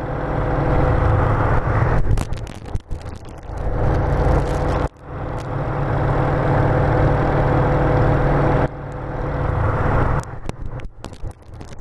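Piston engine of a light aerobatic trainer aircraft droning in the cockpit, mixed with rushing air as a snap roll is flown. The level swells and dips, drops off suddenly about five seconds in, and becomes broken and uneven near the end.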